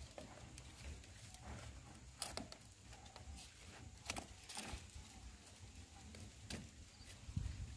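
Faint, scattered clicks and scrapes of grey PVC pipes being handled and pushed into their fittings, with a low background rumble.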